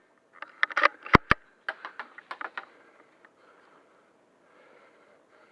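Handling clicks and clacks from an airsoft sniper rifle right after a shot: a quick flurry of small clicks with two sharp clacks a little over a second in.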